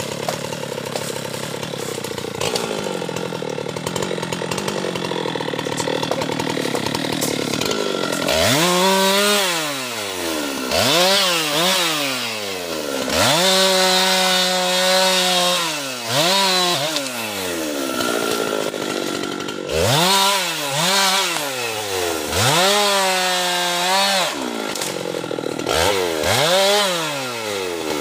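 Husqvarna two-stroke chainsaw running steadily for about eight seconds, then revved up and down over and over, about seven times, each time climbing quickly, holding at high speed and dropping back.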